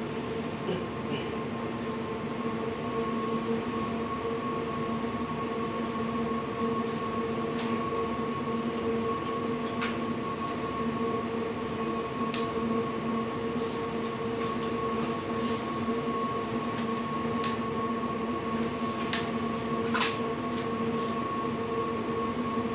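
A steady machine hum with a few faint short clicks.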